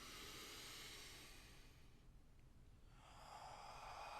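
A person taking slow, deep breaths close to the microphone, faint: one long breath through the first two seconds, then another beginning about three seconds in.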